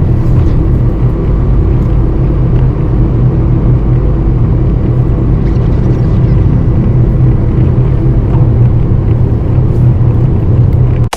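Truck engine and road noise, a steady low drone while driving.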